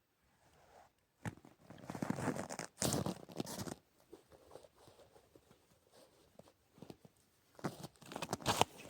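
Close, irregular rustling and crunching in bursts, loudest from about one to four seconds in and again near the end, with faint scattered ticks between.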